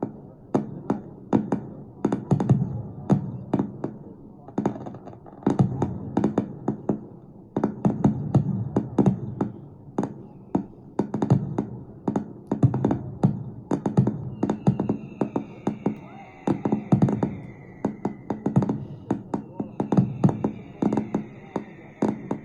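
Fireworks display: a rapid, uneven series of sharp firework bangs, each followed by a brief low boom. Twice in the second half a long falling whistle sounds over the bangs.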